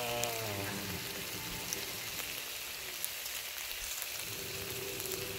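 Seasoned pork belly slices sizzling on a hot grill pan, a steady crackling hiss of fat frying. A short falling pitched sound comes in the first second, and a faint steady tone joins near the end.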